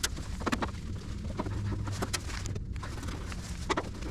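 Irregular clicks and light knocks of the sheet-metal service cover on an outdoor air-conditioner unit being handled and opened, over a low steady rumble.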